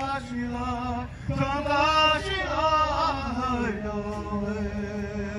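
A man singing a powwow honor song, in sung phrases that glide down in pitch, ending on a long, low held note.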